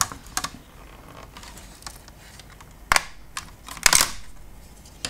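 A few sharp clicks and knocks of the plastic casing and circuit board of a DSL router being handled during disassembly. There is a sharp click about three seconds in and a louder, slightly longer one about a second later.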